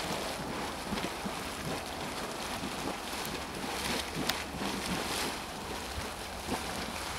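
Water boiling and splashing in the throat of a steaming hydrothermal vent: a steady rushing wash with a few short, sharp splashes.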